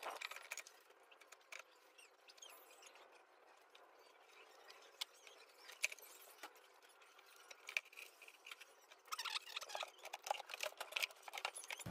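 Faint scraping and clicking of an active speaker's amplifier panel being slid and pressed back into the speaker cabinet. A busier run of scratches and knocks comes about nine to eleven seconds in.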